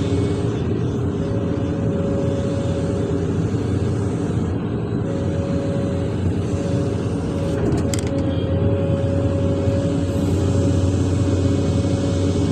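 Large excavator's diesel engine running steadily, heard from inside the operator's cab, with a steady whine over it and a short click about eight seconds in.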